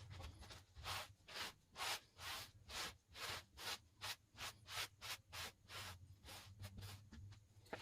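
Wire brush scrubbed back and forth over a rusty iron spoon, scratching off dirt and loose rust in even strokes, about two a second.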